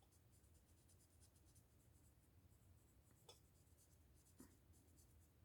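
Faint, quick scratching strokes of a drawing tool shading a plastic model-kit part, with two small taps a little over three and four seconds in.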